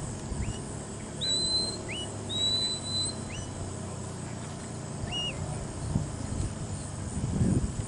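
Shepherd's whistle commands from a handler directing a working border collie on cattle. About six whistles: short sharp upward chirps alternate with longer notes that rise quickly and hold steady, the last near the end of the first second after the middle.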